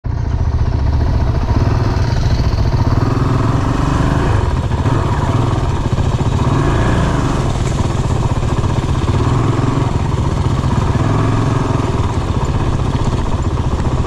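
Honda CRF450RL dirt bike's single-cylinder four-stroke engine running steadily at low speed as the bike rolls over the gravel of a creek bank.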